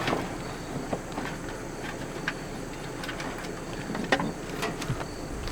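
Scattered light clicks, taps and rattles of parts being handled as an RV furnace's blower motor and its broken blower wheel are worked loose, a few slightly louder knocks around four seconds in.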